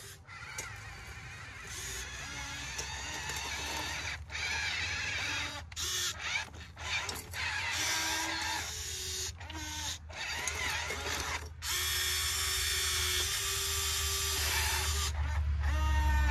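Small electric gear motors of RC toy construction machines whining in short runs, starting, stopping and changing pitch as the machines work.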